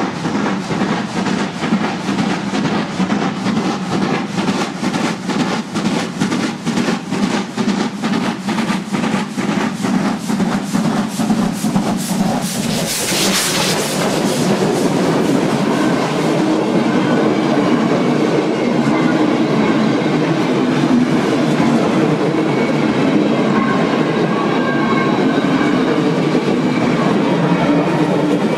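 DR class 50 steam locomotive 50 3648, a two-cylinder 2-10-0, working hard with a 'limping' exhaust beat caused by a damaged valve. The beats come in a steady run until it passes close with a loud rush of steam about 13 seconds in. Coaches then roll by with wheel clatter over the rail joints.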